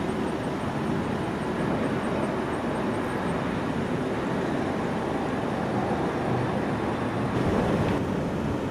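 Jet airliner on landing approach with gear down, its engines a steady rumble that swells slightly near the end.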